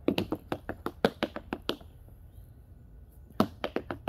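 Tap shoes' metal taps striking a thin wooden board in quick rhythmic tap-dance patterns. The tapping stops for about a second and a half partway through, then starts again.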